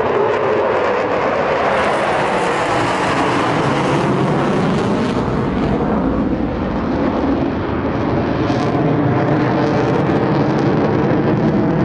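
Jet engine noise from a USAF Thunderbirds F-16 climbing away overhead: a loud, steady rush with a slight fall in pitch near the start.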